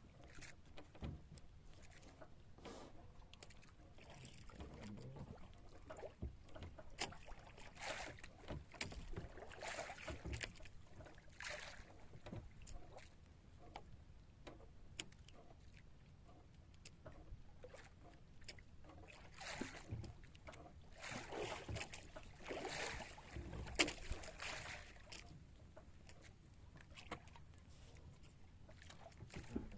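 Water washing against a small wooden fishing boat, with scattered knocks and rustles from handling gear on board.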